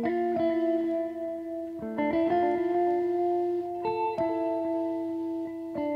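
Background music: sustained guitar chords that change every second or two.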